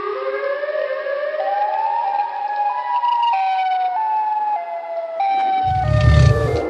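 Siren wail voicing a Siren Head monster, gliding slowly upward in pitch, then jumping between a series of held tones. A loud, deep rumble breaks in near the end.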